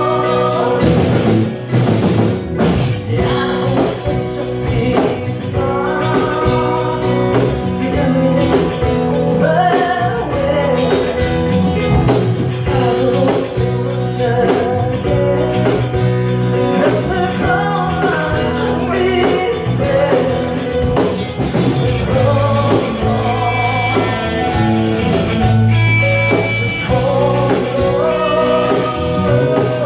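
A rock band playing a song, with a drum kit, guitars and a melodic lead line over it.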